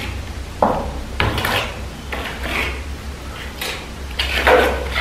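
Steel plastering trowel scraping wet perlite gypsum plaster onto the wall along a corner bead, in a series of short scraping strokes, the loudest near the end.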